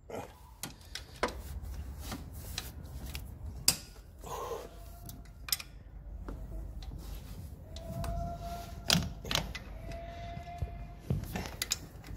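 Metal hand tools clicking, knocking and clinking against engine parts as bolts are worked loose in a car's engine bay, in irregular sharp taps. Two short whistle-like tones sound about two seconds apart near the end.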